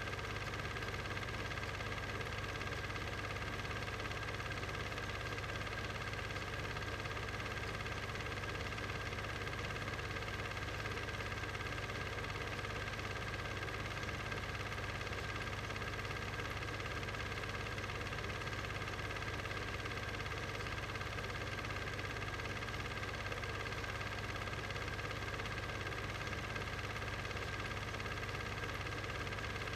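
Steady, unchanging machine hum with several constant tones: the running noise of the film transfer, not sound from the silent footage.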